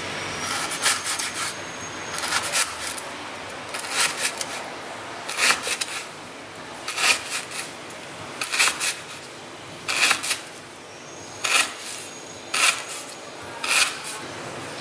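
A chef's knife slicing through a lemongrass stalk on a wooden cutting board. Each cut is a short crunchy stroke that ends on the board, coming in small clusters about every second and a half.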